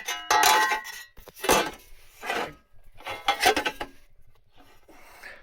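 Pressed-steel replacement jacking-point panel being handled, clanking and rattling in about five short bursts with some metallic ring, then going quiet for the last second or so.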